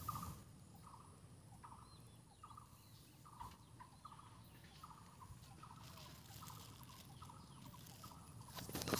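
Faint, short trilling animal calls repeating about twice a second, with a brief rustle near the end.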